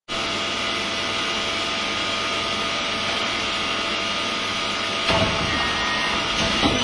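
Steady drone of running metalworking machinery, with a clunk about five seconds in and another knock near the end.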